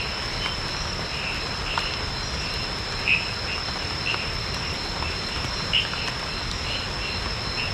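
Night chorus of crickets: a steady high-pitched trill, with short chirps a little lower repeating irregularly about once a second.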